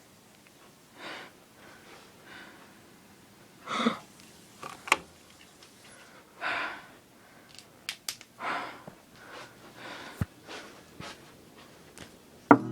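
A person breathing heavily in panting breaths, each one to two seconds apart, with a few sharp clicks in between and a loud sharp knock just before the end.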